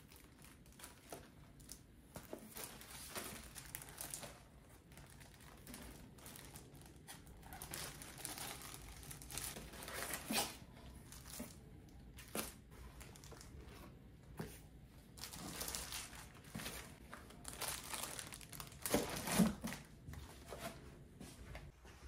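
Cardboard box and paper packaging rustling and crinkling as they are handled, in short irregular rustles, the loudest about ten seconds in and again near the end.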